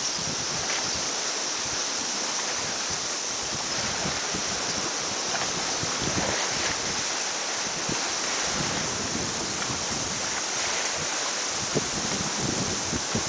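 Steady outdoor wind noise with a constant hiss, buffeting the microphone in a few low gusts.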